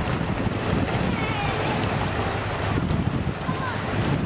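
Wind buffeting the microphone: a steady rush with an uneven low rumble, with a few faint high chirps.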